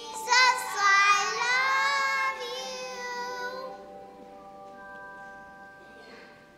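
Children singing the last held note of a song with piano accompaniment; the voices stop about three and a half seconds in, and the final piano chord rings on, slowly fading.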